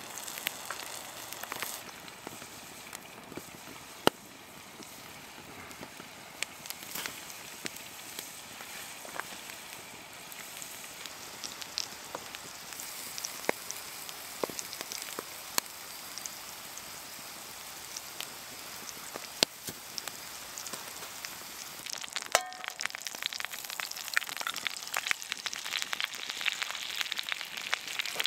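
Food frying in a cast-iron skillet and on a grill rack over a wood fire: a steady sizzle scattered with sharp pops, one loud pop about four seconds in. The sizzle grows busier and louder over the last few seconds.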